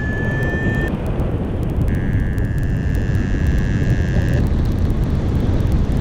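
Strong airflow rushing over the microphone of a paraglider in flight, a steady low rumble throughout. A high steady electronic tone ends about a second in, and a second high tone sounds from about two to four and a half seconds in.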